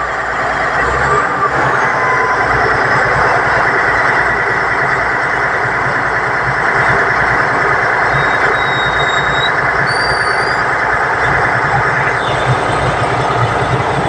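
Heavy truck tractor's diesel engine running steadily as it hauls a loaded lowboy trailer past at close range, its engine and tyres making a dense, even noise.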